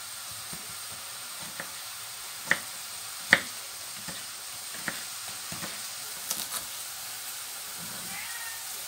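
Mushrooms sizzling steadily in oil in a frying pan, with a kitchen knife slicing a tomato and knocking on a wooden cutting board: a few sharp knocks, the loudest two about two and a half and three and a half seconds in.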